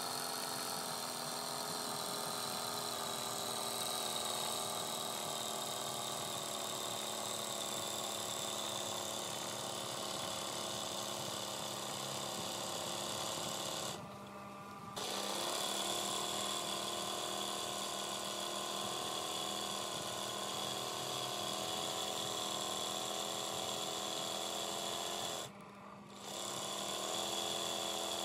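Sewing machine running steadily at speed, stitching free-motion embroidery on cloth in a hand-held hoop. The sound drops out briefly twice, about halfway and near the end, and its pitch shifts slightly after the first break.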